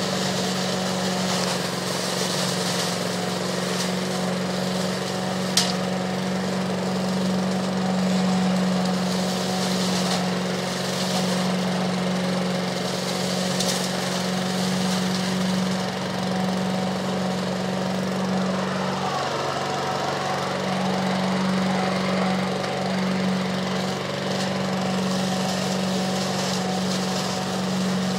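Homemade leaf vacuum running steadily: a small engine's constant drone under the rushing hiss of air and leaves drawn up a wide flexible hose. One sharp crack about five and a half seconds in.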